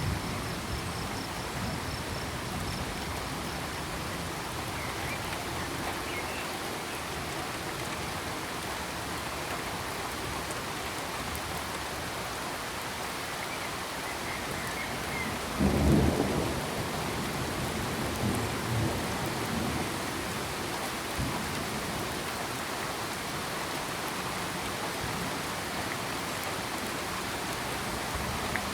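Steady rain with a rumble of thunder about halfway through and fainter rumbles just after it. A cricket trills high and rapidly for the first few seconds.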